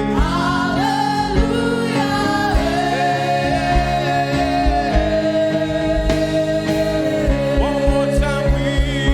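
Live gospel praise-and-worship music: voices singing long, held lines over sustained chords from the band and a steady drum beat that grows busier near the end.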